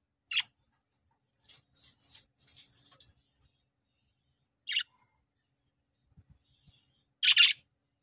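Budgerigars chirping in short high-pitched calls: a single call at the start, a run of quick chirps a second or so in, another call near the middle, and the loudest call near the end.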